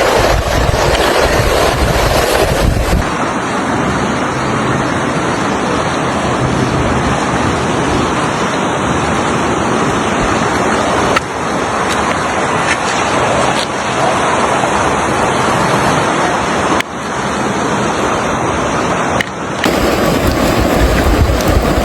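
Rushing floodwater with wind buffeting the microphone: a loud, steady noise that changes abruptly several times where short clips are cut together.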